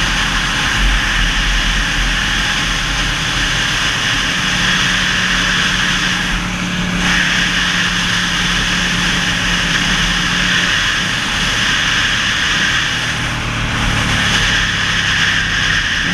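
Wind rushing over the microphone of a camera on a Ducati 1199 Panigale S at road speed, with the bike's V-twin engine running steadily underneath. The engine note drops to a lower pitch about eleven seconds in.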